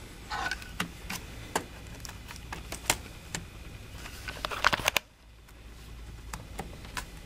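Light plastic clicks and taps as a laptop keyboard is handled and pressed into the chassis of a Sony Vaio PCG-5G3L, with a quick run of clicks shortly before the background noise drops away about five seconds in.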